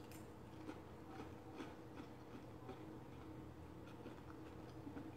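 Faint close-miked chewing of a mouthful of breaded fried cod: soft irregular clicks and smacks, about two a second, over a low steady hum.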